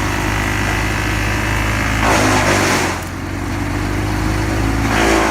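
A heavy machine's engine running steadily, with two brief louder rushes of noise, about two seconds in and near the end.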